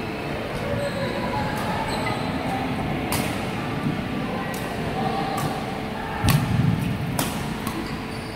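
Badminton rackets striking a shuttlecock in a rally: a series of sharp cracks roughly a second apart, the loudest a little past halfway, over the steady background noise of a busy badminton hall.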